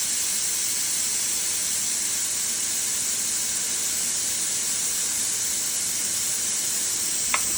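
Compressed air hissing steadily out of a Jun-Air 6-24 compressor's tank as the extra air is let out, with a single sharp click near the end.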